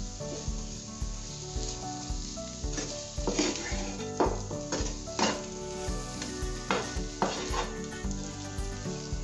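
A wooden spatula stirring and scraping potato masala around a nonstick frying pan, in irregular strokes roughly once a second, over light sizzling.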